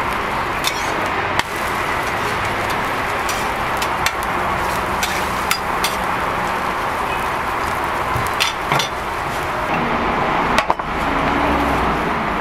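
Two metal spatulas clicking and scraping against a flat-top griddle, a sharp click every second or so at irregular intervals, over a steady sizzling hiss from the patty frying on the hot plate.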